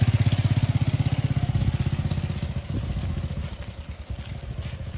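Small motorcycle engine pulling away: a steady, pulsing engine note, strong at first, that fades over the second half as the bike rides off.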